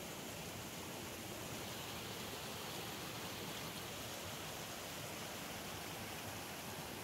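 Steady, even rushing noise with no distinct events, like running water or wind.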